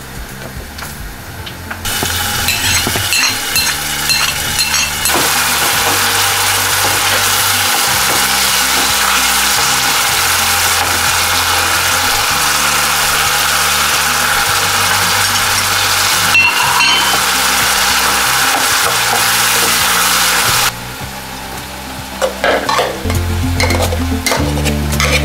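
Grated tomato frying in oil in a pot, a steady sizzle that starts about two seconds in and cuts off near the end, followed by a few clinks of a spoon against a metal pot. Soft background music with a low bass line runs underneath.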